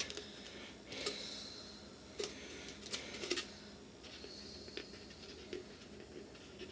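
Faint handling noise of a thin plastic 2-liter soda bottle being turned in the hands: scattered light clicks and crinkles, a few sharper ones in the first half.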